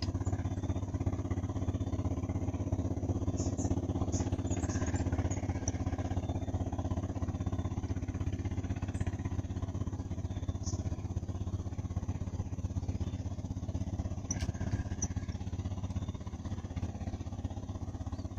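Steady low drone of a boat engine running on the river, with a few faint high clicks over it.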